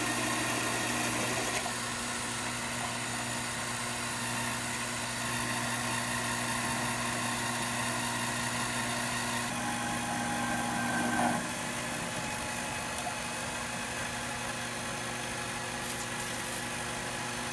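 Mini metal lathe running steadily with a steady motor hum, a 1/4-inch drill in the spinning chuck boring into a steel blank held in the tool post. Near the end come short hisses of spray lubricant from an aerosol can.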